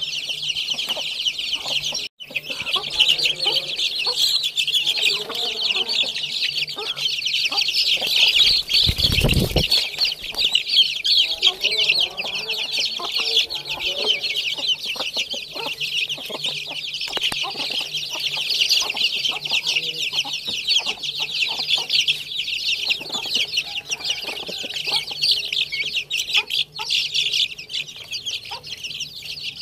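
A flock of young chicks cheeping non-stop, many high-pitched peeps overlapping at once. A brief low rumble comes about nine seconds in.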